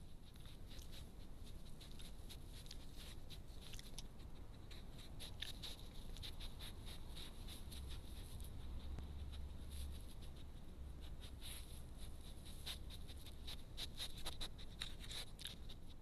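Badgers foraging close by: irregular crackling and clicking of snuffling, rustling in the grass and chewing, coming in clusters. A faint steady hum lies underneath.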